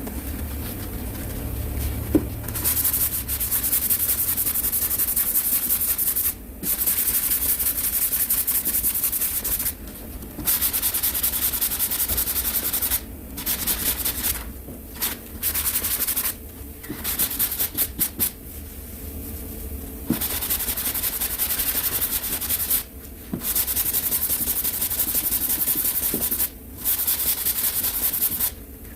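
Sandpaper on a sanding block being rubbed by hand over cured automotive body filler, a steady rasping hiss in runs of a few seconds that stop and start abruptly. A quick flurry of short strokes comes about two thirds of the way in.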